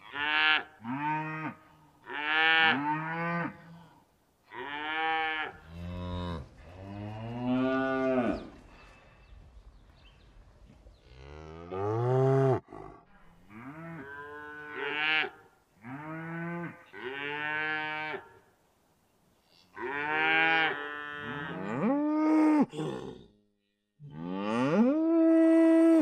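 Cattle mooing over and over: about ten separate moos with short pauses between them, several bending up and then down in pitch, the last one held at a steady pitch.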